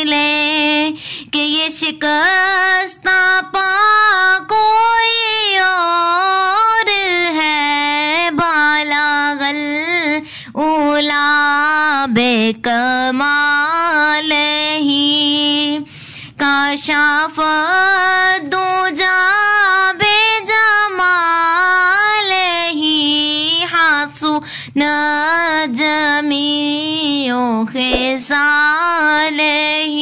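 A naat sung by a single high voice, unaccompanied, in long, ornamented melodic lines that slide up and down in pitch, with brief breaths between phrases.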